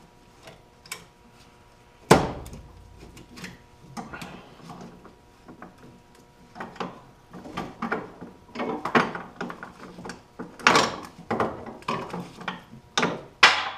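Ratchet strap being released and unhooked from a snowmobile's rear suspension: one sharp clack about two seconds in, then a run of metal clicks, clanks and rattles as the strap and its hooks are worked loose.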